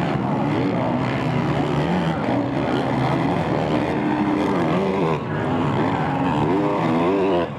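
Motocross bike engine at racing speed, its pitch repeatedly rising and falling as it revs up and drops back, with short dips in level about five seconds in and near the end.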